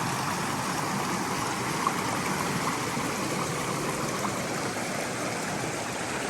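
Stream water rushing steadily, with a brief click about two seconds in.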